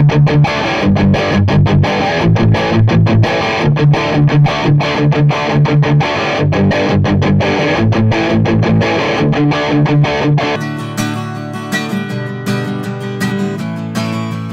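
Electric guitar played through a guitar amplifier in a rhythmic, repeating chord pattern; about ten and a half seconds in, it gives way to an acoustic guitar being strummed. Both are picked up by the AmazonBasics Professional USB condenser microphone.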